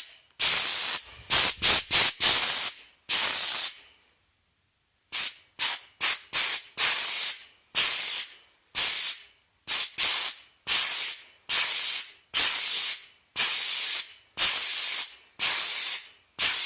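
Compressed air hissing out of a tire-inflator attachment in short blasts as its lever is squeezed and released over and over, about twenty blasts with a pause of about a second after the first few.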